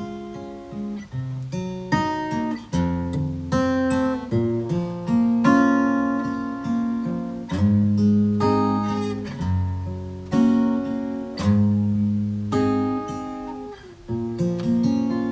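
Solo steel-string acoustic guitar playing the song's instrumental outro: chords plucked and strummed by hand, each one left to ring, with a short drop in level about fourteen seconds in before a fresh strum.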